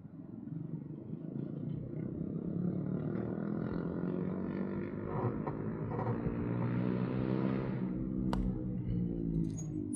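A small engine running as it passes, growing louder over several seconds and dropping slightly in pitch near the end, with one sharp click about eight seconds in.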